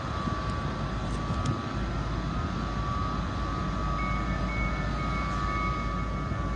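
Trains moving through the platform: a steady rumble with a constant whine, joined from about four seconds in by a higher, broken squeal that comes and goes.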